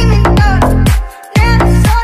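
Electronic dance music with a heavy bass and repeated falling pitch slides; the beat drops out briefly about a second in.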